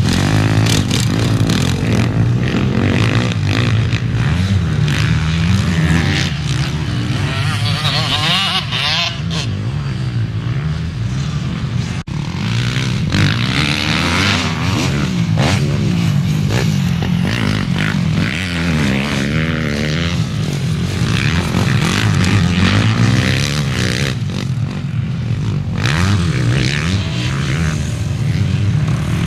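Racing motorcycle engines revving, their pitch rising and falling again and again as the bikes accelerate and back off. There is a brief dropout about twelve seconds in.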